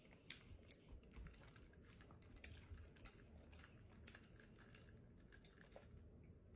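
Faint, scattered small clicks and taps over near silence: a glass jar of ice water being handled and sipped from through a straw.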